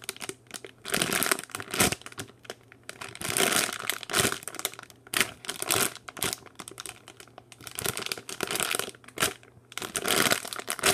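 Irregular crinkling and rustling as a slow-rising foam squishy toy is handled and squeezed.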